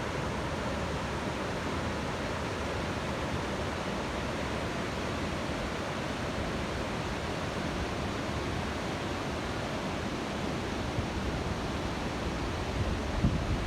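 Waterfall rushing in a steady, even roar of falling water, with a few low thumps of wind on the microphone near the end.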